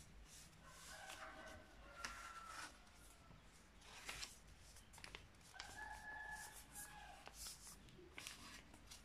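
A sheet of printer paper being folded and creased by hand, with faint scattered crackles and rustles. Behind it, two long drawn-out animal calls of about two seconds each are heard, one about a second in and one past the middle.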